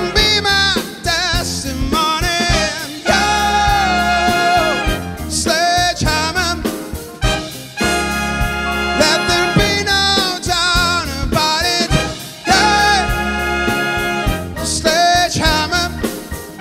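Live big band music: a male singer holding long notes with a wide vibrato over brass, saxophones, piano, guitar, bass and drums.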